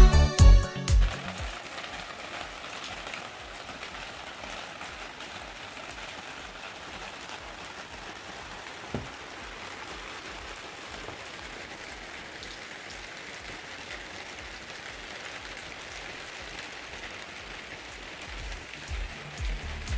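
Steady patter of rain, an even hiss with no rhythm, with a single faint click about halfway through. Background music with a strong beat cuts off about a second in and comes back near the end.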